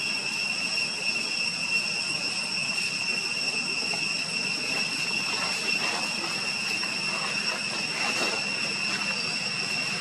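Steady, high-pitched insect drone, one unbroken buzzing tone with a higher overtone, over a low background hiss.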